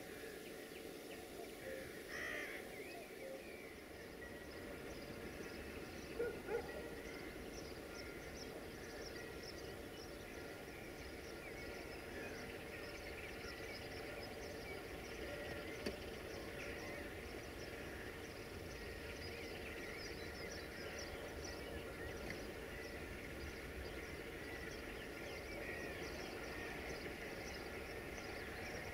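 Birds chirping and calling, with two louder calls about six seconds in, over a faint low rumble.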